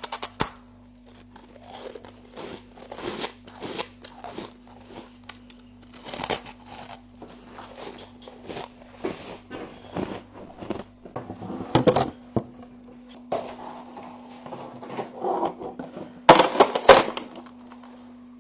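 Frost crunching in irregular crisp bursts as it is scooped and eaten, with the loudest crunches about twelve seconds in and near the end, over a steady low hum.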